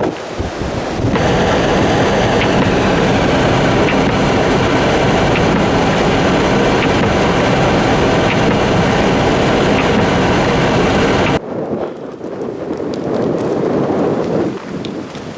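Blizzard wind blasting the microphone: a loud, steady rush of wind noise that cuts off suddenly about eleven seconds in, leaving weaker, gusty wind.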